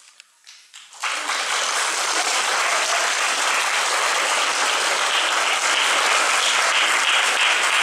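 Audience applauding at the end of a children's choir song. After a brief hush, the clapping breaks out about a second in and keeps going steadily.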